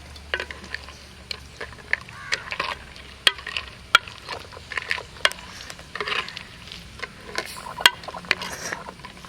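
Crab curry being stirred in a cooking pot after the masala has gone in: a spoon scrapes and knocks against the pot in irregular sharp clinks.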